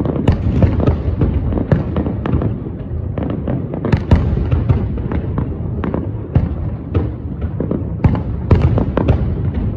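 Fireworks display: rapid bangs from bursting shells, several a second, over a continuous low rumble, with the loudest bangs about 4 and 8.5 seconds in.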